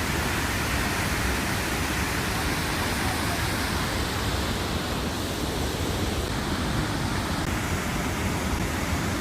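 Steady rushing hiss of a waterfall, flowing light with little water going over.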